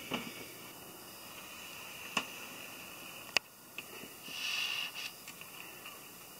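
Light clicks and taps of brass sheet-metal model parts being handled and fitted together, a few separate clicks with one sharper click about three and a half seconds in, then a brief rustle.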